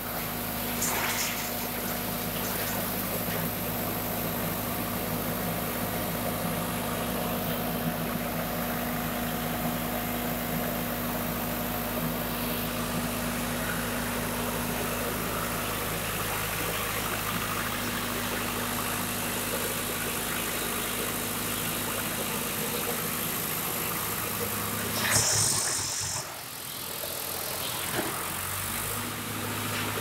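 Diesel engine of a wood chipper running steadily, with a constant low hum. About 25 seconds in, a short louder noise breaks in and the hum briefly changes before settling again.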